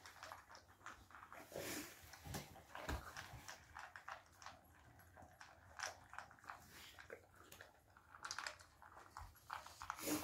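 Two dogs eating from stainless steel bowls: faint, irregular chewing and small clicks of teeth and food against the metal.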